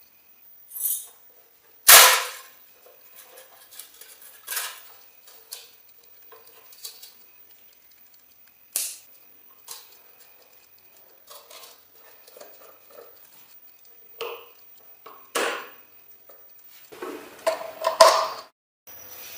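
Scattered clicks, knocks and clatters of hard objects being handled and set down, the loudest about two seconds in and a busier run of clatter near the end.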